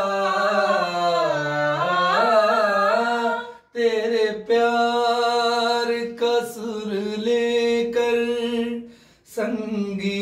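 A man and a woman singing a Hindi song without accompaniment, holding long ornamented notes that waver in pitch. The woman's voice comes first; after a brief pause about four seconds in, the man's voice takes over.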